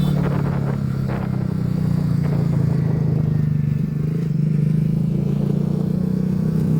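Motorcycle engine running at a steady, even pace, as when cruising.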